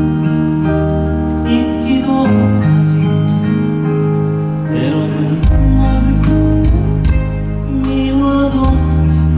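Song accompaniment playing over the stage sound system: sustained chords and bass, with a drum beat coming in about five and a half seconds in.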